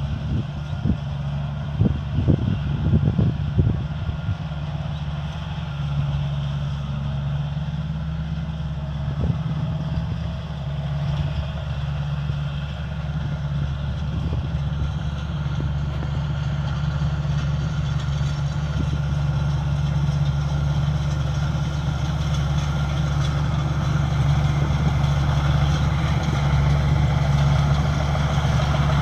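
Combine harvester's diesel engine running steadily under load, with a few sharp knocks in the first few seconds. The machine noise grows a little louder toward the end.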